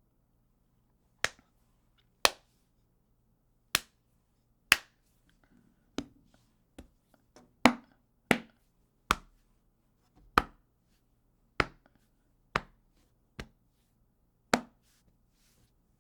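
Punches landing on a human body, a series of about fourteen short, sharp smacks at an uneven pace of roughly one a second, some harder than others.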